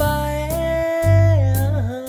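Instrumental backing music played on a Yamaha PSR S770 arranger keyboard: a held lead-melody note that slides down in pitch about a second and a half in, over steady bass notes.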